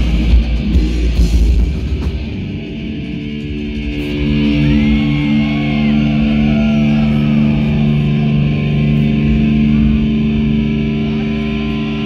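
Heavy metal band playing live with distorted electric guitars and drums; about two seconds in the drums stop and sustained guitar notes ring on, with some wavering, sliding notes above them.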